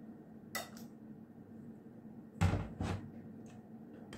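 Spoon and kitchenware knocking against a cooking pot as potato chunks are spooned into a stew: a light clink about half a second in, then two heavier knocks close together around the middle.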